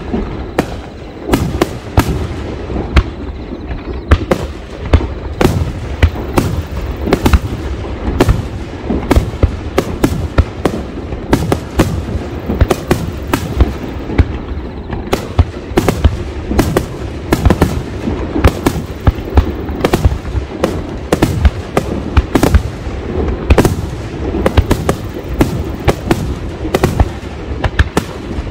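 Fireworks display: aerial firework shells launching and bursting in a rapid, continuous barrage of sharp bangs, several a second, over a steady low rumble.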